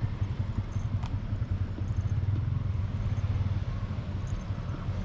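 Steady low rumble of a motor vehicle running, with a faint click about a second in.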